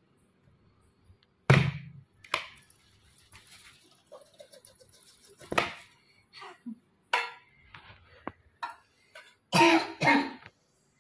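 An aluminium cake tin knocking and tapping as it is handled on top of a steamed milk cake on a plate: a handful of separate sharp knocks, the loudest about a second and a half in. A short burst of voice comes near the end.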